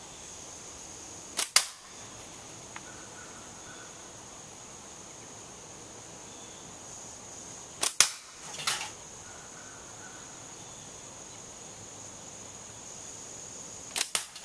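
Three slingshot shots about six seconds apart. Each is a sharp snap as the TheraBand Gold bands are released, followed a split second later by a louder crack as the 3/8-inch steel ball strikes the 12-ounce can. The second shot is followed by a brief, softer rattle.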